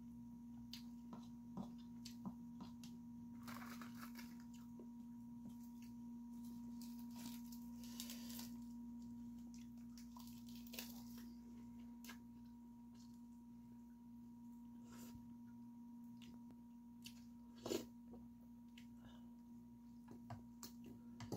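Quiet eating sounds: a spoon scraping and clicking in a bowl of soy-sauce egg rice, with scattered chewing, over a steady low hum with a faint higher tone.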